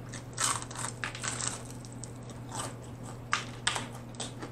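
Close-miked chewing of crispy fried chicken: irregular sharp crunches of the fried breading, over a low steady hum.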